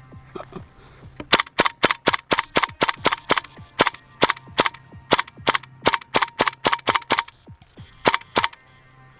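Gas-blowback airsoft gun firing a quick run of single shots, about three or four sharp cracks a second, each with the clack of the slide or bolt cycling. After a short pause, two more shots follow.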